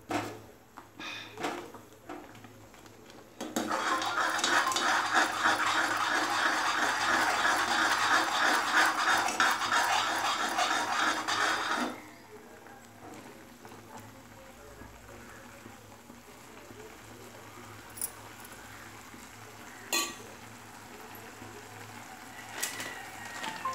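A metal ladle scraping and clinking against a kadhai as thick gram-flour (besan) batter is stirred to break up its lumps. A few single knocks come first, then about eight seconds of fast, continuous stirring that stops suddenly, followed by quiet with an occasional clink.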